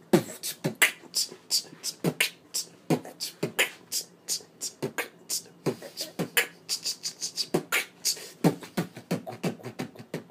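A person beatboxing a steady hip-hop beat with the mouth: deep kick sounds roughly every three quarters of a second, with quick crisp clicks in between.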